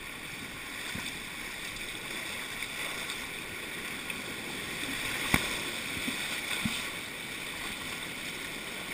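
River rapids rushing steadily around a tuber riding through white water, with a brief sharp sound about five seconds in.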